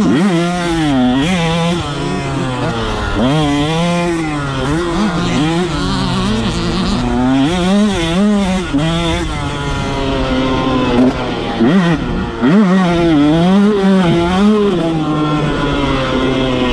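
KTM motocross bike engine heard on board, revving up and down over and over, its pitch climbing and falling with throttle and gear changes, with short drops where the throttle is rolled off.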